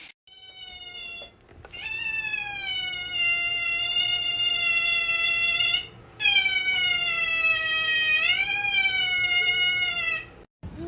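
A pet animal giving long, drawn-out calls: a short faint one first, then two long ones of about four seconds each, the second rising in pitch near its end.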